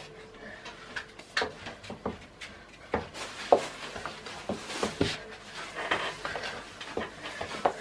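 Irregular light knocks and clicks of kitchen things being handled, a dozen or so separate taps with short quiet gaps between them.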